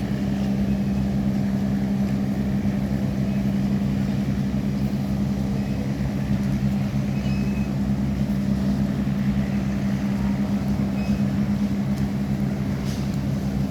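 An engine running at a steady speed: a constant low drone with a strong even hum.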